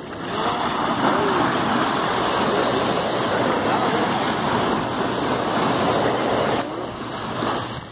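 Surf washing up the beach, a steady rush of foaming water that swells up just after the start and falls away near the end.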